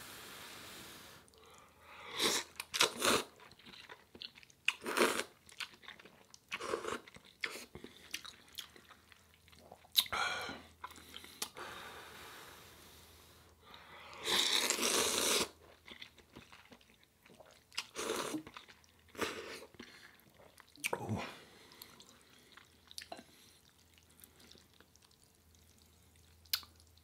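A person eating Jin ramen noodles close to the microphone, slurping them off chopsticks and chewing in short separate bursts. One long, louder slurp lasts about a second and a half, just past the middle.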